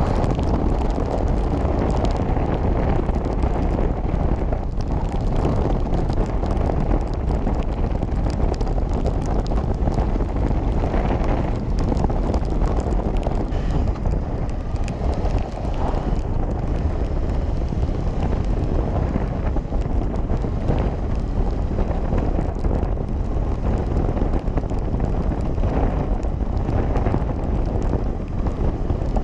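Wind rushing over the microphone of a camera on a motorcycle riding at road speed, mixed with the motorcycle's running noise: a steady low rumble.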